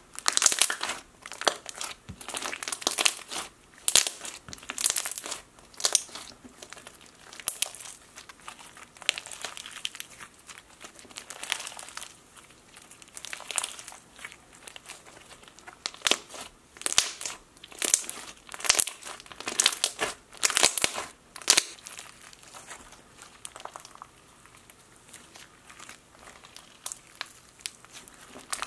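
Hands squishing and stretching a thick marshmallow floam slime full of foam beads, making an irregular string of sharp bubble pops and crunches.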